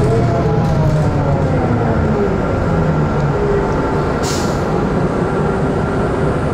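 Daewoo BS120CN city bus under way, its DL08K diesel engine and Allison six-speed automatic running steadily and loudly. A whine falls in pitch over the first two seconds, and a short hiss of air comes about four seconds in.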